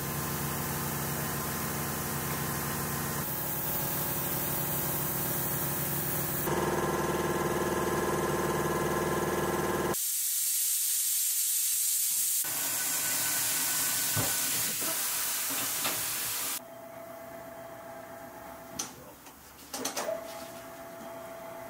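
Tire-shop work noise in short stretches that change abruptly: compressed air hissing and a machine running, then quieter, with a few sharp clicks and knocks as a tire is worked onto its wheel on a tire changer.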